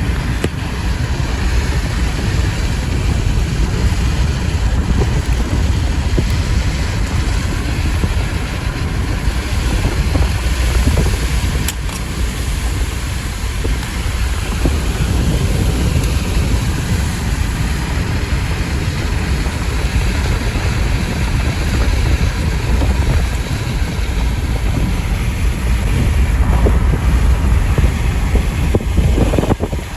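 Steady low rumbling of a moving car on the road, with gusty outflow wind from the approaching storm buffeting the microphone.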